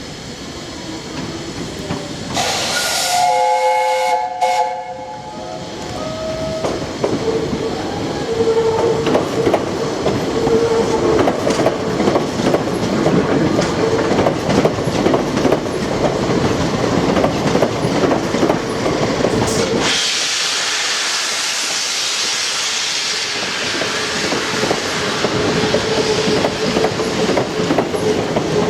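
Steam locomotive, LNER A1 4-6-2 No 60163 Tornado, sounds its whistle for a few seconds starting about two seconds in, then gets under way with its train, with a loud steady running sound. A strong hiss starts about twenty seconds in.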